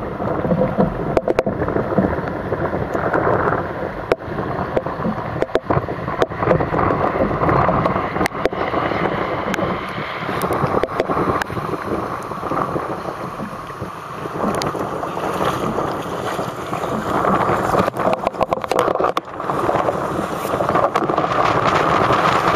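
Rushing, buffeting noise of wind on the microphone and water around a kayak in rough weather, with scattered sharp clicks and knocks, a quick run of them about three-quarters of the way through.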